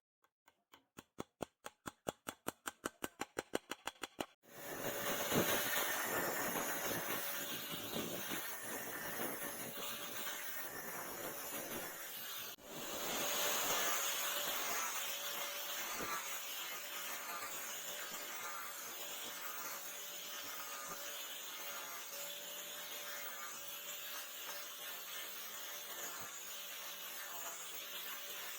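Rapid ticking that speeds up for about four seconds, then a power tool running steadily with a grinding hiss and a faint steady whine, working on the knife's steel or handle.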